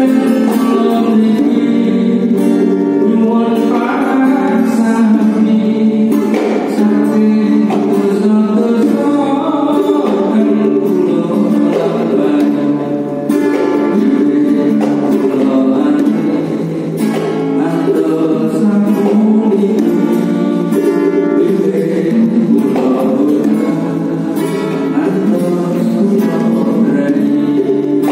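Men's voices singing a devotional chant together, led by one man singing into a microphone, the group joining in unison.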